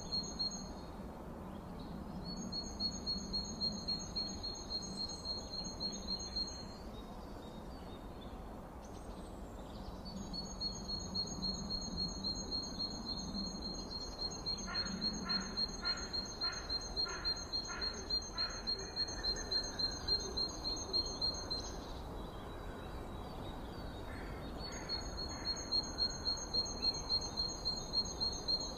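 Forest ambience: a high, fast-pulsing trill at one steady pitch comes in bouts of several seconds with pauses between them, and a run of short, evenly repeated calls sounds partway through.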